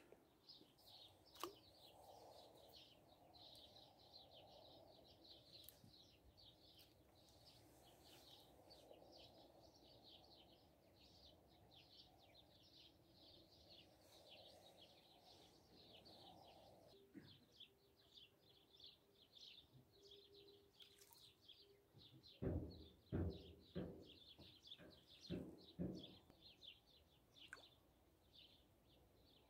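Faint, continuous chirping of small birds, many short high notes in quick succession. Near the end, a cluster of five or six louder knocks and thumps.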